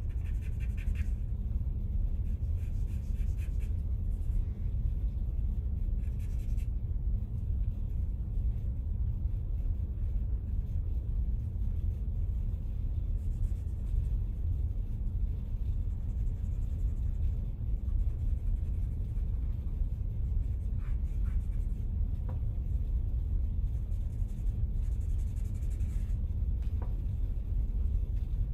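Charcoal scratching on drawing paper in short runs of hand strokes, several times over, against a steady low rumble.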